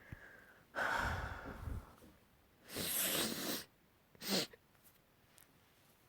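A person breathing audibly in three breathy sounds: a sigh-like breath about a second in, a longer hissing breath around three seconds, and a short sharp one just after four seconds.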